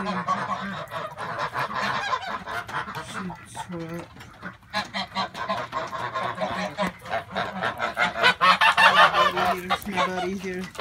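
A flock of grey domestic geese honking, many calls overlapping, growing louder near the end.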